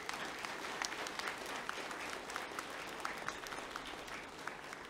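Audience applauding: many hands clapping in a steady wash, easing off slightly near the end.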